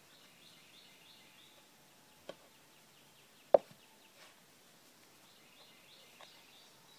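Two sharp knocks on a wooden cutting board while beef ribs are handled and seasoned: a small one about two seconds in, and a much louder one about a second later. A bird sings a quick run of high repeated notes at the start and again near the end.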